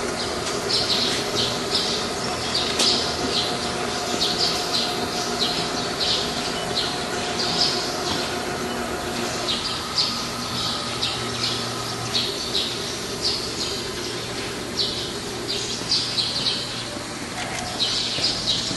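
Birds chirping and squawking in short, frequent calls over a steady machine hum from the powered-up CNC slotting machine. The hum's tone shifts about halfway through.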